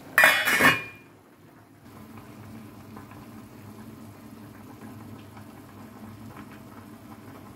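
A stainless steel pot lid clanks against a pot of boiling water, with a brief metallic ring. A faint steady low hum follows.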